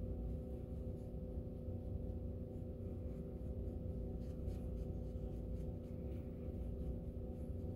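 A steady low hum made of several held tones runs throughout. Faint light strokes, most noticeable around the middle, are a powder brush whisking loose powder off the skin.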